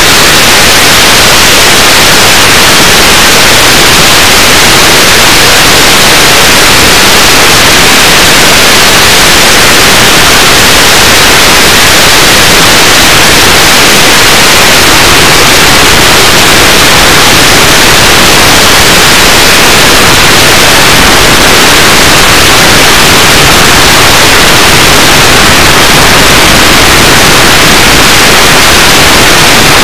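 Loud, steady static hiss with no engine or propeller tone in it, even and unchanging throughout.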